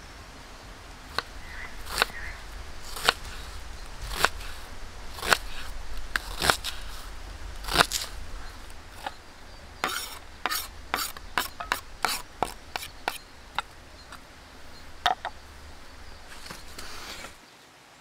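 Kitchen knife chopping zucchini on a wooden cutting board: single sharp knocks about a second apart, then a quicker run of knocks past the middle. Near the end the knife scrapes the cut pieces off the board into a metal bowl.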